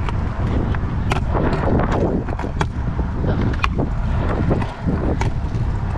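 Stunt scooter's 110 mm wheels rolling over concrete with a steady low rumble, punctuated by sharp clicks and knocks as the loose scooter rattles over the ground.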